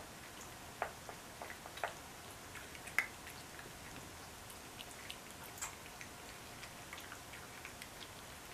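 Cats eating soft raw meat from a plastic platter: faint, irregular smacks and clicks of chewing and licking, the loudest about one, two and three seconds in.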